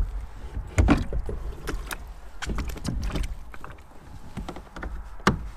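Old Town Predator PDL pedal drive unit being pulled down into its well and latched, giving a series of plastic knocks and clicks, the loudest about a second in and a sharp click near the end as it locks down.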